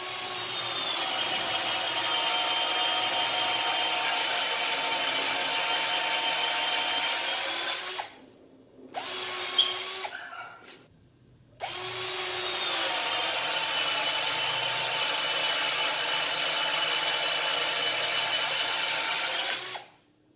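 Ridgid R82005 12V cordless drill/driver boring a 3/4-inch bit into pine in two runs of about eight seconds each, with a short pause between. Each run starts with a higher motor whine that drops in pitch and holds steady as the bit bites into the wood and loads the motor.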